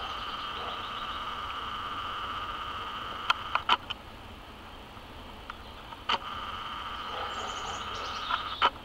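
Steady high drone of insects, with a few sharp clicks about three and a half seconds in, again around six seconds, and twice near the end.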